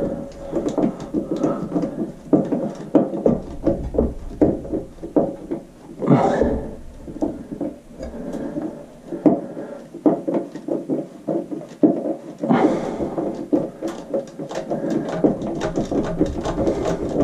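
Rapid, irregular small clicks, taps and scrapes of a screwdriver and screw working against the sheet-metal housing of a bathroom exhaust fan, as the screw is found and driven back in. Longer scrapes come about six seconds in and again around twelve to fifteen seconds.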